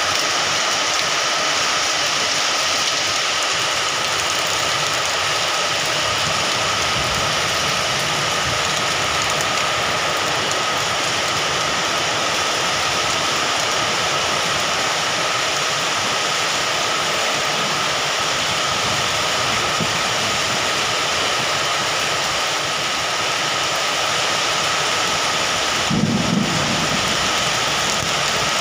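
Heavy rain pouring steadily onto wet paving: a dense, even hiss. A brief low thump near the end.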